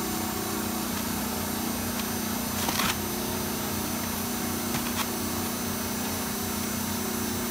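Industrial machinery running with a steady hum. A short burst of noise comes about three seconds in and a sharp click about five seconds in.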